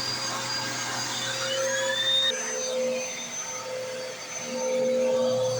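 Bissell CleanView Rewind 3534 upright vacuum cleaner running over carpet: a steady motor whine, with a rising whistle that cuts off about two seconds in, where the tone shifts.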